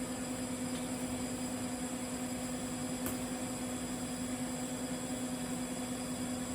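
TIG welding arc on carbon steel pipe: a steady electrical buzzing hum with a constant hiss, unchanging throughout.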